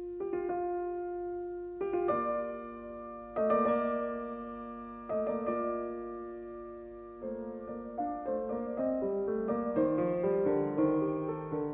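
Slow solo piano music: sustained chords struck every second or two and left to fade, with a quicker run of notes near the end.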